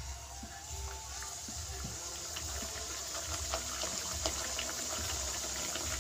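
Mango-dough luchi deep-frying in hot refined oil in an aluminium kadai: a steady sizzle with scattered crackling pops, starting as the dough goes in and growing a little louder.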